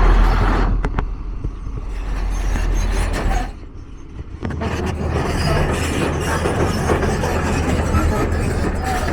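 City street noise with a vehicle's low rumble. It drops away suddenly for about a second a few seconds in, then resumes.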